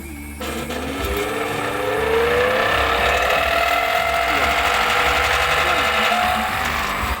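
Satay-skewer-making machine running on its single-phase electric motor: a mechanical clatter starts abruptly about half a second in, with a whine that rises in pitch over several seconds as the motor spins up, then holds steady.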